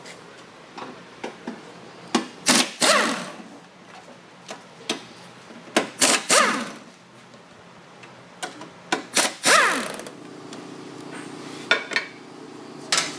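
Pneumatic impact wrench loosening the bolts of a walk-behind trencher's belt housing. It fires three short hammering bursts a few seconds apart, and each winds down with a falling whine as the trigger is let go.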